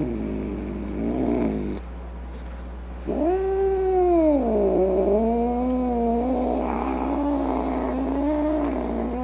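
Domestic cat yowling and growling: a short call, then about three seconds in a long drawn-out yowl that drops in pitch and holds low and wavering.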